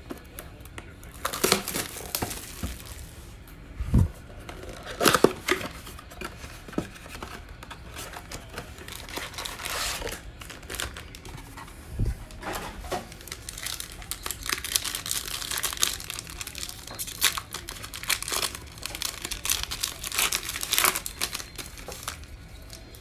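Panini Mosaic football blaster box being opened: packaging tearing and trading-card pack wrappers crinkling as they are ripped open, with a couple of dull thumps.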